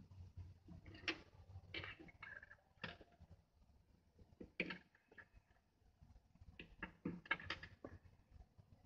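Faint, irregular clicks and light taps from hands handling a small wooden board with two little DC motors and an alligator-clip lead, several close together in the last third.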